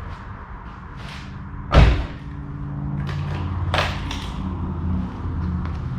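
A single heavy slam about two seconds in as part of the minivan is shut, followed by a steady low hum that carries on, with a few lighter knocks.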